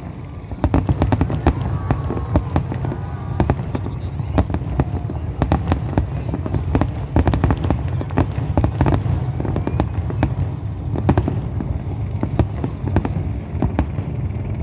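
Finale of a harbour fireworks display: many aerial shells bursting in rapid succession, with dense sharp cracks and bangs over a continuous low rumble.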